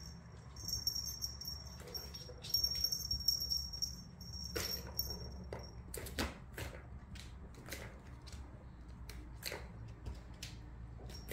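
Kittens playing with toy balls on a wooden floor: a small toy bell jingles in bursts through the first half, then a run of light clicks and taps follows as the toys are batted about.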